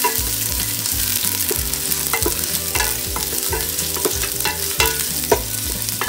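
Ginger strips sizzling in hot cooking oil in a stainless steel pot, with repeated knocks and scrapes of stirring against the pot.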